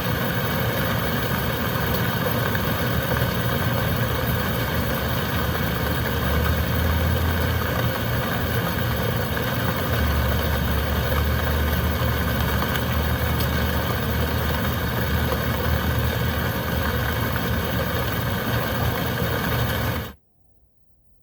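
Heavy rain and wind as a steady, dense hiss with a deep low rumble underneath. Near the end it cuts out suddenly to near silence.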